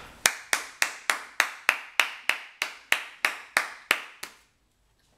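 One person clapping their hands, about fourteen claps in a steady rhythm of roughly three to four a second, stopping about four seconds in.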